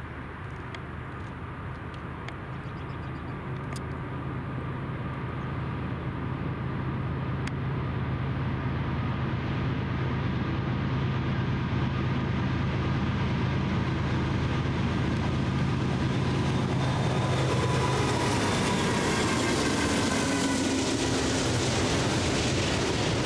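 Diesel-electric freight locomotives, a GE GEVO-engined DC unit and an AC44C6M, approaching with a stack train. Their steady low engine drone grows louder over the first two-thirds. Near the end the wheel and rail noise of the passing train takes over.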